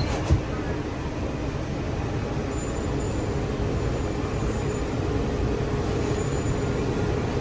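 Walt Disney World monorail running after its doors close: a steady low rumble, with a faint steady hum coming in around the middle.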